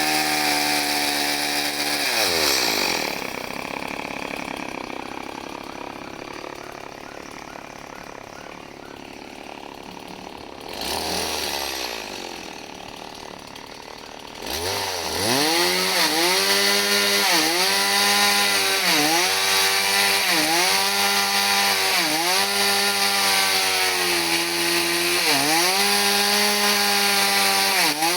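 Chainsaw engine running. About two seconds in it drops from high revs to a lower, quieter running, with one short rev near the middle. From about halfway it runs hard and loud, its pitch dipping briefly about every second and a half.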